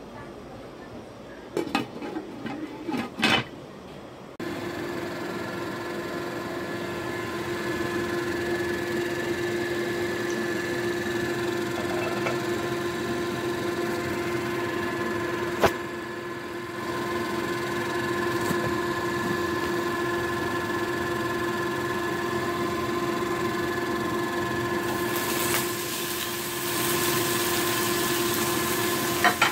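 A few knocks and clatters of cookware about two seconds in. Then a steady appliance hum with a fan-like whir runs on. Near the end a hissing sizzle rises as sliced sausages fry in hot oil in the pan.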